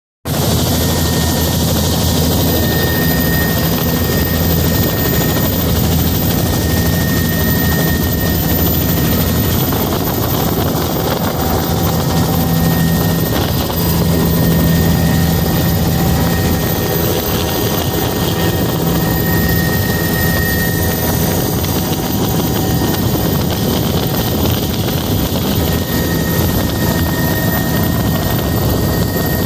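Helicopter running steadily as it lifts off and climbs, heard from inside the cabin: a loud, even engine and rotor noise with a thin high whine held above it.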